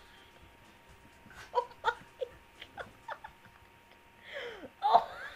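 Young women laughing in disgust: a run of short, breathy bursts of laughter, then a louder squealing laugh that slides down in pitch near the end.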